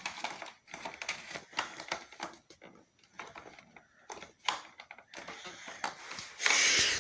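Irregular clicks, knocks and rattles of plastic vacuum parts being handled, with a short, louder rushing noise near the end.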